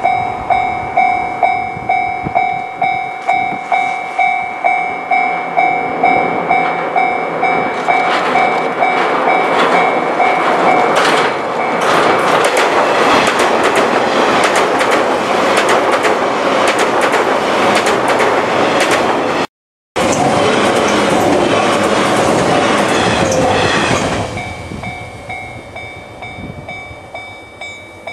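Japanese level-crossing warning bell dinging about twice a second, then the 485-series joyful train 'Utage' passes over the crossing from about eight seconds in, its wheels clicking rapidly over the rail joints. The sound drops out for a moment near twenty seconds. The train noise fades after about twenty-four seconds and the crossing bell is heard again as it leaves.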